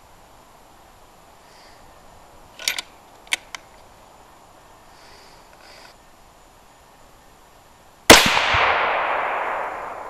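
A single shot from a .308 Winchester bolt-action rifle (Savage model 10 action, 26-inch bull barrel) firing a 168-grain match handload, very loud and sudden near the end, with a long echoing tail that fades over about two seconds. A few sharp clicks come earlier, about two and a half to three and a half seconds in.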